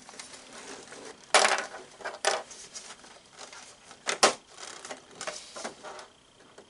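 Hard plastic parts of a vintage G.I. Joe Headquarters playset clacking and knocking together as a side panel is worked into place: a few sharp clacks, three of them louder, with lighter ticks between.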